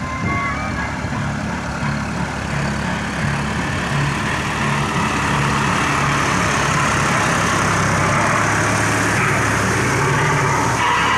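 John Deere 5050D tractor's three-cylinder diesel engine running steadily under load as it pulls a rotavator through a flooded paddy, mixed with the churning, splashing noise of the rotavator blades working the wet mud. The sound grows louder about halfway through.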